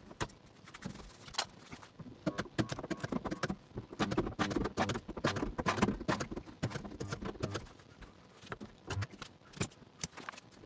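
A hand-held resistance spot welder with angled prongs at work on a car body panel flange: many quick, irregular clicks and knocks as it clamps and welds, busiest in the middle of the stretch.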